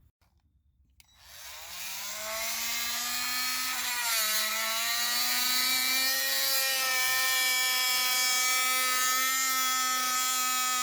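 Electric saw cutting wood: the motor spins up about a second in and runs steadily with a high whine, its pitch dipping briefly about four seconds in.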